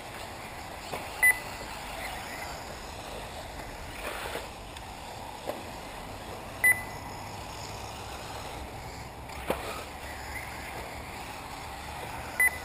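Three short, high electronic beeps about six seconds apart, the kind a race lap-timing system gives as RC cars cross the line, over steady wind noise, with a couple of brief sharp knocks in between.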